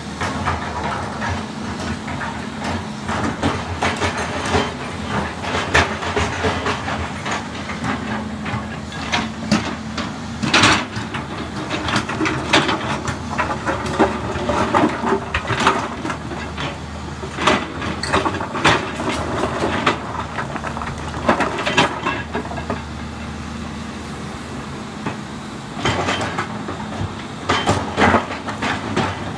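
Volvo EC210B excavator's six-cylinder diesel engine running steadily while its steel bucket digs and loads broken stone, with repeated irregular clattering and knocking of rocks against the bucket and each other; the sharpest knocks come about 6, 10 and 21 seconds in and again near the end.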